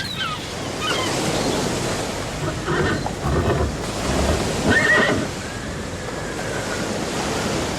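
Steady rushing of surf with wind buffeting the microphone, and brief higher-pitched sounds about three and five seconds in.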